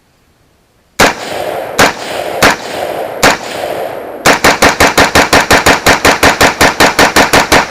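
AR-15 rifle in 5.56/.223 firing: four single shots spaced under a second apart, then a fast string of about twenty shots at roughly six or seven a second. The rifle cycles every round without a stoppage, its slipping gas block now fixed.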